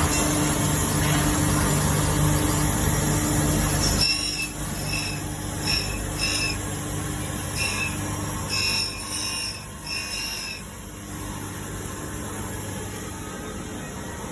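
MF 400A automatic carbide knife grinder running, with a steady motor hum and grinding noise. About four seconds in the sound drops suddenly, and short high squeals come irregularly for several seconds before it settles into a quieter steady run.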